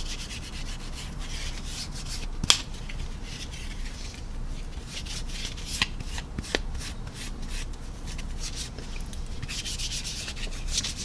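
A piece of paper towel rubbing over a plastic scale model's painted surface in repeated scratchy strokes, wiping off dried panel-line wash. A few sharp clicks come through, the loudest about two and a half seconds in.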